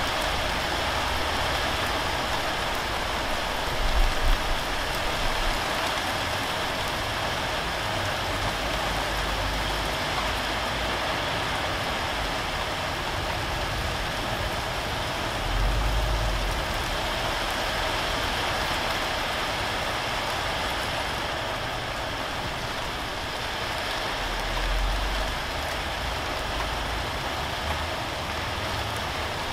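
Steady rain falling, an even hiss throughout. Three short low rumbles stand out: about four seconds in (the loudest), in the middle, and near the end.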